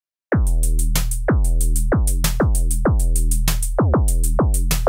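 Synthesized drum beat from Reason's Subtractor synths triggered through Kong: a kick whose pitch drops sharply into a long, deep tail, with short high hi-hat ticks between the kicks. It starts about a third of a second in.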